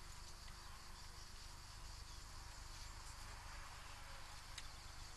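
Faint, steady chirring of insects in the background, over a low rumble, with a single sharp click a little before the end.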